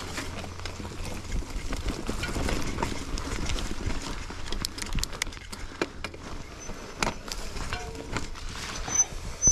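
Mountain bike rolling down a rocky dirt trail: tyre noise on dirt and stones with irregular rattles and knocks from the bike as it goes over bumps, the sharpest knock at the very end.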